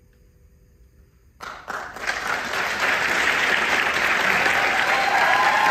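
Audience applause breaking out suddenly after a quiet pause about a second and a half in, building quickly to steady clapping, with a cheer near the end.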